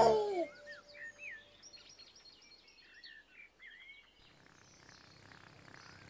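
Faint birdsong: short chirps and quick whistled sweeps, heard for about the first four seconds just after a musical phrase ends. After that there is a faint hiss that grows slowly toward the end.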